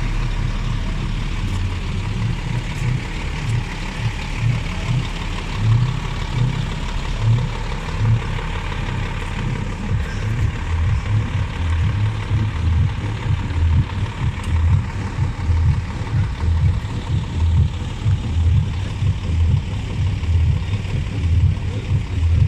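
Heavy truck engines running at idle, a steady low rumble with an uneven throb.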